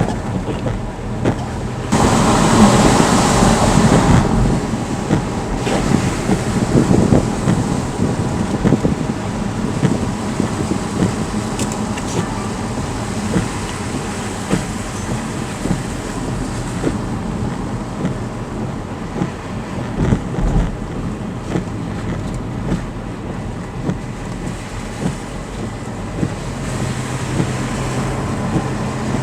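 Car driving on a road, heard from inside the cabin on a dashboard recorder: steady tyre and engine rushing with scattered small ticks, louder for a couple of seconds about two seconds in.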